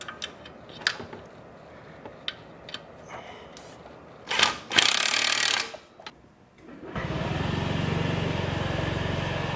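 Cordless impact driver running in a short burst and then for about a second, halfway through, driving a 10 mm fender bolt on a Honda Ruckus, after small clicks of the tool being handled. Near the end a steady low running sound starts.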